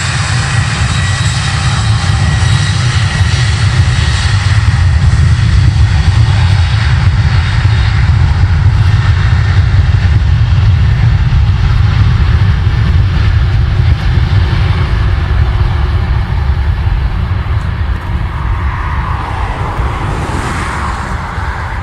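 Boeing 747-400's four jet engines running loud: a deep rumble with a high whine over it, swelling over the first few seconds and slowly fading away near the end.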